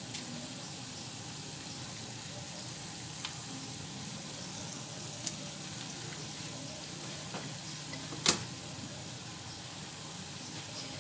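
Zalabya (luqmat al-qadi) dough balls deep-frying in a pot of oil, sizzling steadily, in oil she says is too hot. A few light clicks and one sharp click come about eight seconds in.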